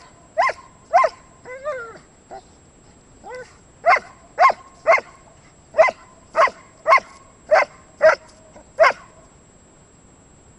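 German Shepherd giving excited play barks at a stick: a run of about a dozen short, high-pitched barks roughly half a second apart, with a brief whine between them early on, stopping about nine seconds in.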